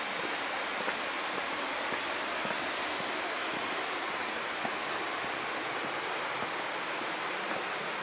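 Steady rush of flowing water, with a few faint footsteps on stone.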